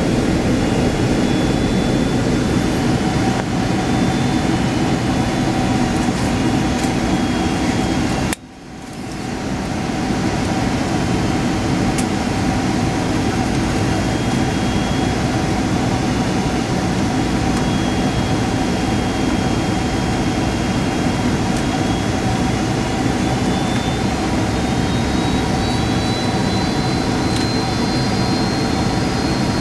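Steady in-cabin noise of a Boeing 767 in flight: the airflow rush and the hum of its Rolls-Royce RB211 turbofans, with a faint high whine that rises slowly near the end. The sound cuts out abruptly about eight seconds in and fades back over a second or two.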